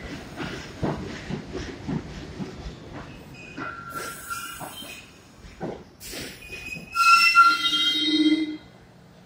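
R62A subway train slowing into a station: wheels clicking rapidly over the rail joints, then steel wheels and brakes squealing in high tones with short hisses. The loudest, many-toned squeal comes about seven seconds in and stops abruptly as the train comes to a halt.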